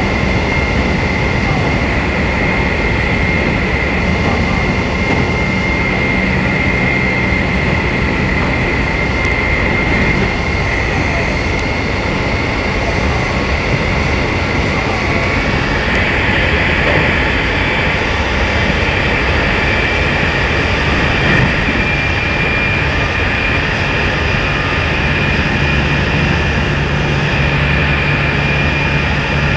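Electric train running at speed, heard from inside the carriage: a steady rumble of wheels on track with a high whine that shifts a little higher about halfway through.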